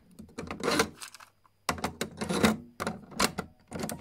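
Handling noise from vinyl records and their packaging being moved: an irregular run of sharp clicks and taps with a couple of short scraping slides.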